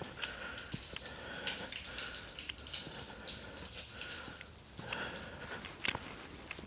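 Footsteps crunching over icy snow, with many small crackles and ticks between the steps.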